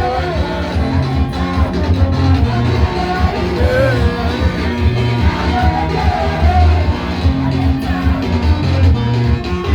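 Gospel praise music: singing voices over a band with a heavy repeating bass line and a steady beat.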